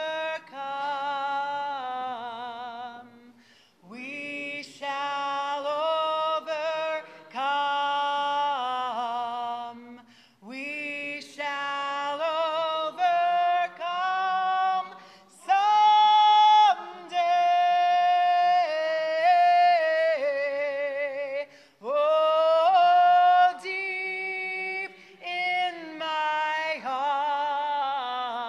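A woman singing unaccompanied into a microphone in long, held phrases with vibrato. A standing congregation sings along more faintly beneath her.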